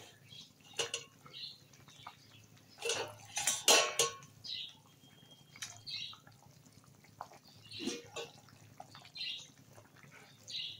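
Pieces of fried katla fish dropped one at a time into boiling curry gravy in a metal pan: irregular plops, splashes and bubbling, loudest about three to four seconds in, with a metal spatula knocking against the pan near the end.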